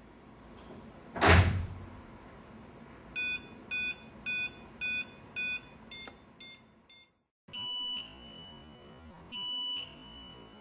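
A short loud whoosh about a second in, then a piezo buzzer alarm beeping in pulses. Five even beeps come about half a second apart, followed by a few fainter ones, then longer beeps at a different pitch after a short gap.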